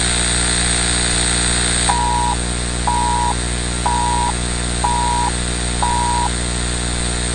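Emergency alert alarm for a nuclear attack warning: a loud, harsh buzzing noise. Five short beeps sound about a second apart over it, starting about two seconds in.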